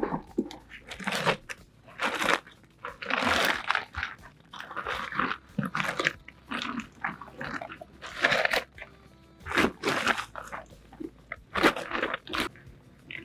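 Rustling and crunching in a dozen or so irregular bursts as a piece of camping gear is stuffed into its carry bag.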